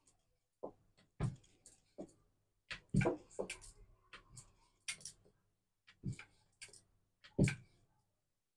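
Wooden rolling pin and wooden board knocking as puri dough is rolled out and handled: a string of irregular soft knocks, the loudest about three seconds in and near the end.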